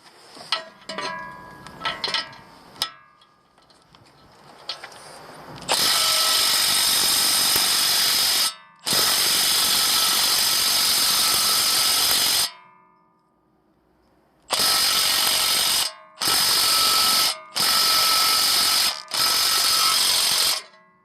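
Power tool running in repeated bursts, with a few light clicks and knocks before it. It starts about six seconds in with two long runs of three to four seconds. After a short pause come four shorter bursts of about a second and a half each.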